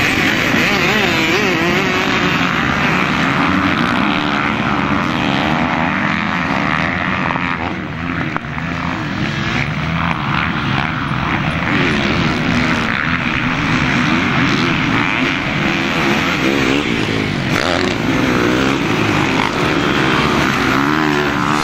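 A pack of motocross dirt bikes racing, many engines revving up and down over one another. The sound dips briefly about 8 seconds in.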